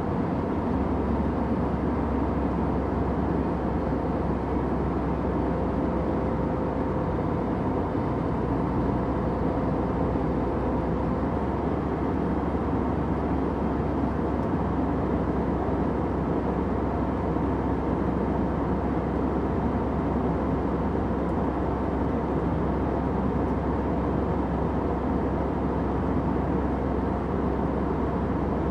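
Steady airplane cabin noise: an even, low rush and rumble of engines and airflow that holds without change, with a faint steady hum inside it.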